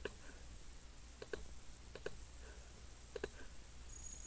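Computer mouse clicking: a few short clicks, some in quick pairs, roughly one a second, over a faint low hum.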